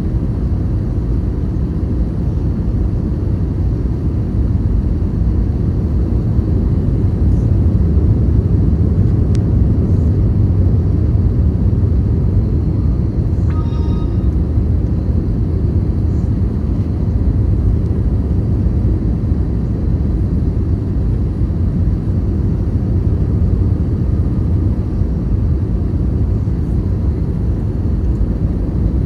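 Steady low rumble inside the cabin of an Airbus A321 airliner in flight: jet engines and airflow noise heard from a window seat toward the rear. A short, high, pitched tone sounds once about halfway through.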